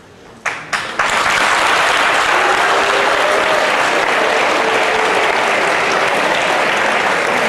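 Audience applauding: a few scattered claps, then steady, dense applause from about a second in.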